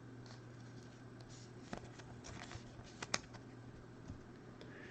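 Faint handling of trading cards: light rustles and a few small clicks, two sharper ones a little under two seconds and about three seconds in, over a low steady hum.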